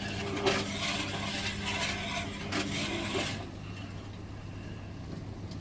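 Washing machine running with a steady motor hum and repeated rough scraping and rasping: the sign of bra underwires that have slipped through the drum holes and are caught between drum and tub.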